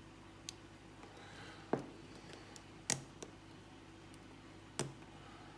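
Faint, scattered metallic clicks of a hook pick probing the pin stacks of a Lockwood 334 padlock cylinder held under tension, about five separate clicks. The lock is in a deep false set with overset pins.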